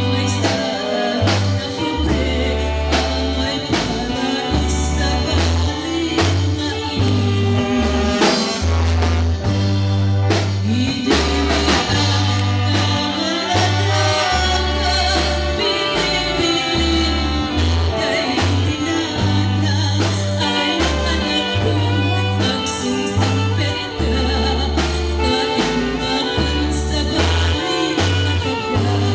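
A woman singing an Ilocano song into a microphone with a live band: electric bass, drum kit, keyboard and trombone, amplified through PA speakers. The bass walks through steady low notes under regular drum hits.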